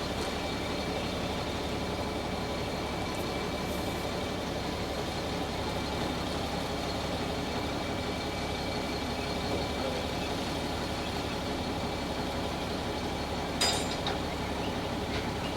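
A large engine idling steadily, with one short sharp knock near the end.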